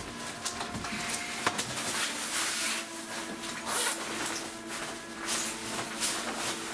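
Rustling of jacket fabric and handling noise as a jacket is pulled off and things are put down, in repeated swells over steady held tones.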